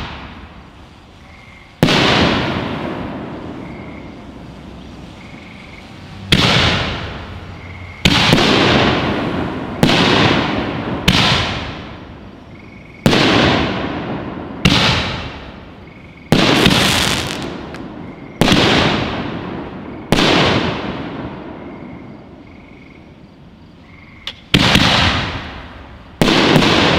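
Aerial firework canister shells from the Holy Nishiki assortment bursting one after another, about a dozen in all. Each is a sharp bang that fades away over a second or two. They come about every one and a half to two seconds, with a longer pause of about four seconds before the last two.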